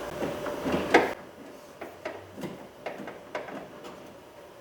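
Socket and extension clicking and knocking against the metal inside a car door while a 10mm nut is being started on the door handle's bolt. There is one sharp knock about a second in, then lighter clicks about every half second.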